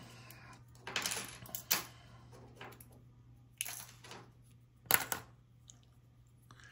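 Small plastic contact sensors being handled: a few scattered light clicks and taps of hard plastic, about a second in, near two seconds, near four seconds and a sharper one about five seconds in, over a faint steady hum.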